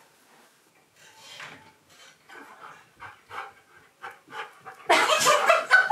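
Husky-malamute dog panting in quick, even breaths, faint at first and much louder from about five seconds in.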